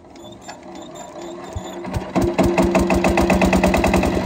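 8 hp single-cylinder diesel engine of an irrigation water pumpset being hand-cranked and gathering speed. It fires about one and a half seconds in, catches, and runs with a fast, regular beat.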